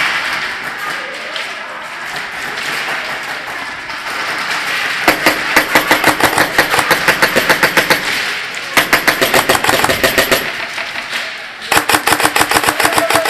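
Airsoft rifle firing full-auto in three long rapid strings of sharp cracks, the first starting about five seconds in, with short gaps between them. Before that there is only a steady noisy din from the arena.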